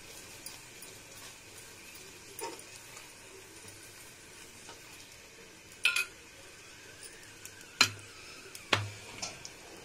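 Paratha frying in ghee in a nonstick pan, a faint steady sizzle, while a steel spoon spreads the ghee over its top. The spoon clinks sharply against the pan four times, once with a short metallic ring about six seconds in.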